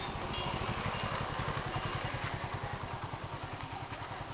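A small engine running steadily at idle with a rapid, even pulse, easing off slightly in the second half.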